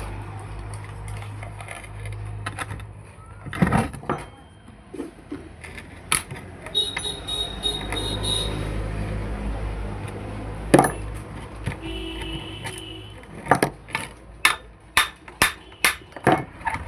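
Metal tools knocking and clinking on a rusted aluminium-bodied cooler motor, with short metallic rings, then a run of about seven hammer blows, roughly two a second, near the end. A low steady hum runs under the first half.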